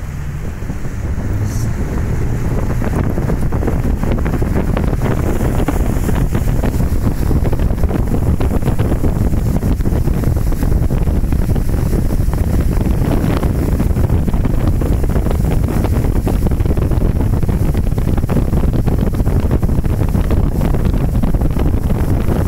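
Small motorboat under way: its motor runs steadily, with wind buffeting the microphone and water rushing past the hull. The sound grows louder over the first couple of seconds, then holds steady.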